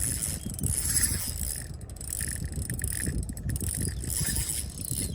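Fishing reel's drag ratcheting and whirring as a hooked fish, taken by the angler for a trevally, pulls line off during the fight.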